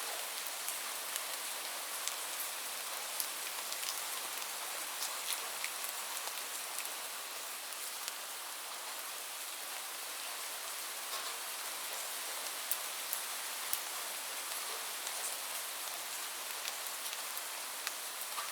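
Heavy rain falling steadily, a dense even hiss with individual drops ticking sharply on a surface now and then.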